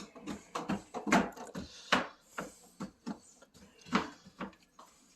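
A series of irregular knocks and taps as the closet accordion door's anchor panel is nudged in at the bottom to bring it level.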